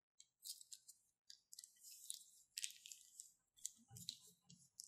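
Quiet wet crackling and squelching of slime squeezed out of a plastic piping bag onto a tray of slime, in a series of short bursts.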